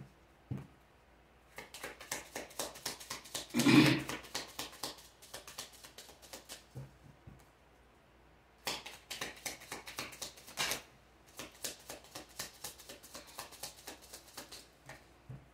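A tarot deck being shuffled by hand, a rapid run of crisp card flicks in two spells with a short pause in between. One louder burst about four seconds in.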